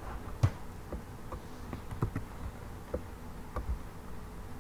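Sparse soft clicks of a computer mouse and keyboard, the sharpest about half a second in, over a faint steady electrical buzz.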